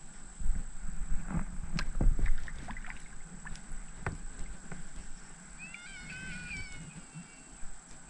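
Scattered knocks and thuds of gear being handled in a kayak, loudest in the first few seconds. About six seconds in, a bird gives a brief call of a few wavering high notes.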